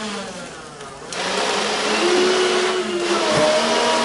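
Nerf Rival Nemesis blaster's electric flywheel motors whirring as it fires foam balls. The whirr dips briefly, then spins back up about a second in.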